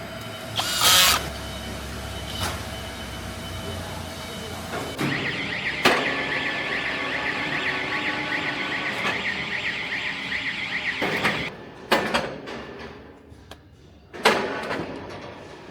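Electronic warning alarm warbling for about six seconds, starting about five seconds in and cutting off suddenly, among metallic knocks and clatter in a factory workshop.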